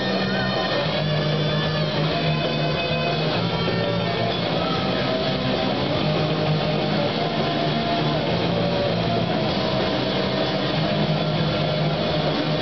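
Live rock band playing electric guitars through amplifiers with a drum kit.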